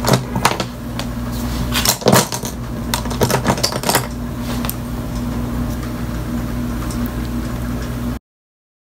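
Clicks and taps of makeup products being handled, a compact or case and brushes knocking together, over a steady low hum. The clicking stops about four seconds in, leaving only the hum, which then cuts off suddenly a little after eight seconds.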